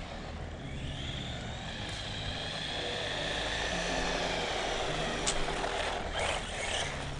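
Su Chi Yu 16102 1:16 scale RC monster truck's electric motor and drivetrain whining at speed, the pitch rising and falling as the truck speeds up and slows down. A sharp click a little after five seconds.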